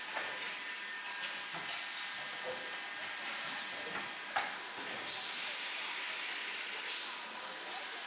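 Metal-forming press working aluminum pot blanks in a factory hall: a steady machine hiss with a faint hum, broken by three short, loud hissing bursts and a few sharp metallic clacks, the sharpest just after the first burst.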